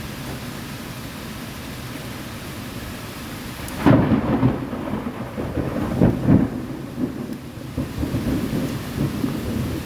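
Steady rain falling, then a thunderclap about four seconds in that rolls on as a long, loud rumble in several swells.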